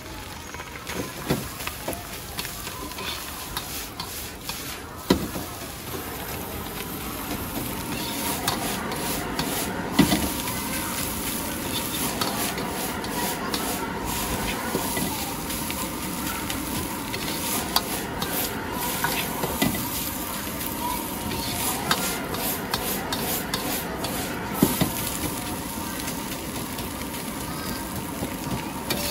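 Fried rice sizzling in a wok over a high flame while a metal ladle stirs, scrapes and tosses it. A few sharp clanks of the ladle on the wok come through, and the frying grows a little louder about eight seconds in.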